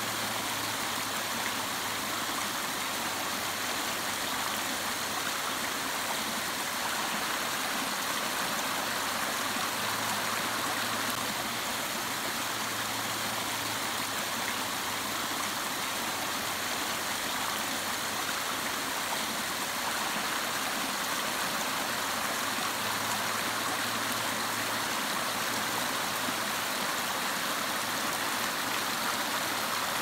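Small hillside stream rushing and splashing steadily as it cascades over a stepped bed of flat rocks.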